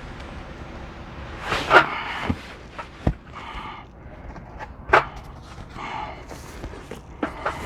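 Foam packing and cardboard rustling and scraping as the padding is pulled apart, with a few sharp knocks; the loudest scrapes come about two seconds in and again about five seconds in.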